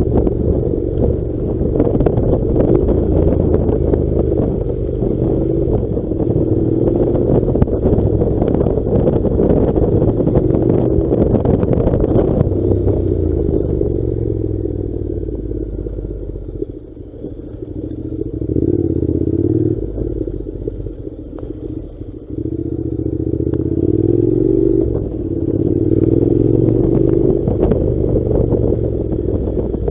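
Honda NC700's 670 cc parallel-twin engine running as the motorcycle rides a gravel track, with loose stones and the bike clattering over the rough surface. The engine note drops away for several seconds in the middle, then picks up again.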